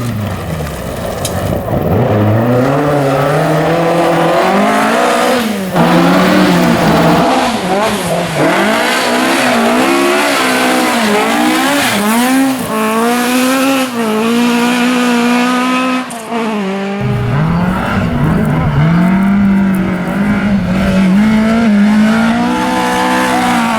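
Ford Escort RS rally car engines being driven hard. The engine note climbs and drops over and over as the car goes through gear changes and on and off the throttle, with abrupt jumps a few times where one clip cuts to another.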